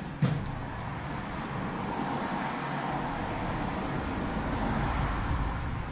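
A road vehicle passing by: a steady rushing noise with a low rumble that swells and then eases off near the end. A single metallic click comes just after the start.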